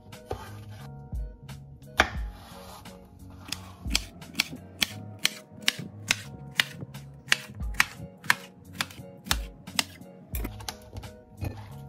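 Chef's knife chopping cucumber on a wooden cutting board: a few separate knocks, then a quick, even run of sharp knocks, about three a second, from around four seconds in until about ten seconds in. Calm hip-hop background music plays under it.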